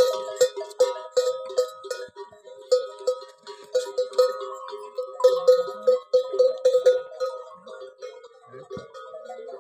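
Steel bowl tapped by hand in a rhythm, each tap ringing at the same few pitches, two to three taps a second; the tapping thins out near the end.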